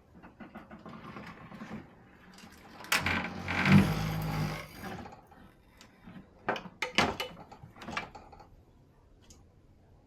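Pinball playfield being lowered and slid into its cabinet: a scraping slide a few seconds in, with sharp knocks and clunks before and after as it settles into a tight fit.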